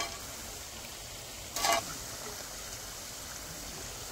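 Battered potato wedges frying a second time in hot oil: a steady low sizzle, with one brief clink about one and a half seconds in.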